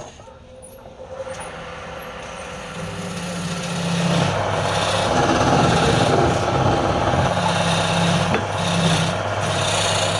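Wood lathe running with a steady motor hum while a tool scrapes against the spinning wood; the scraping dips right at the start, then builds over the first few seconds and stays loud.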